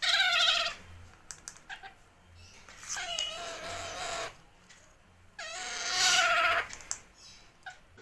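Young green parakeet chick making three long, whining begging calls while it is spoon-fed, the food-begging voice of a hungry hand-fed chick.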